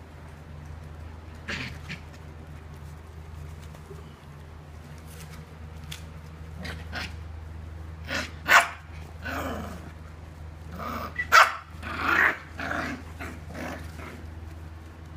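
Bernese Mountain Dog puppies barking and growling as they play-fight: scattered short barks that come thicker and louder after the first several seconds, the loudest a little past halfway.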